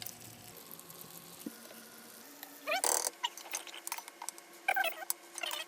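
A faint steady hum. From about three seconds in come a series of short, high-pitched, arching squeaky calls, like an animal's.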